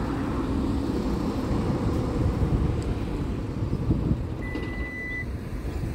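Steady low rumble of vehicle engine noise, with one short high-pitched beep a little over four seconds in.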